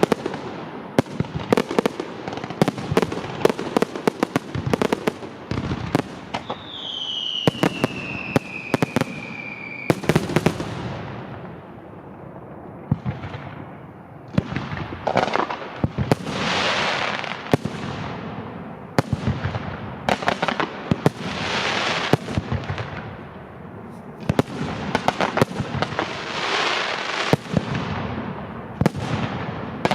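Fireworks display: a rapid series of bangs from bursting shells. A whistling shell falls in pitch from about seven to ten seconds in. In the second half several swells of crackling hiss come from crackle effects.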